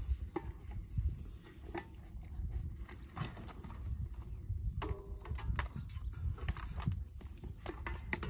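Irregular clicks and knocks of hands working on a surface irrigation pump's fittings and hose, with a short squeak about five seconds in, over a low steady rumble.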